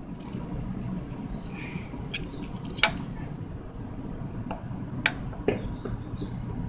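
Kawasaki Ninja 250 parallel-twin engine idling steadily, an engine with a bad connecting-rod bearing. A few sharp clicks sound at irregular moments over the running, the loudest a little before the halfway point.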